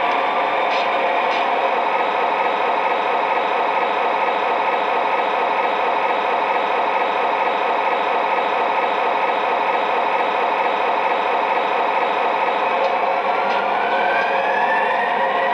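MTH RailKing O-gauge SD45 model locomotive's replacement sound file playing a diesel engine idling steadily through the model's speaker, with a whine rising in pitch near the end.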